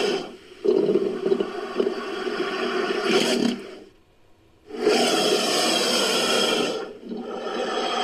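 Sound-effect black caiman calls made from crocodilian recordings: three long, rough, raspy calls, with a near-silent gap of about half a second just past halfway and a brief dip near the end.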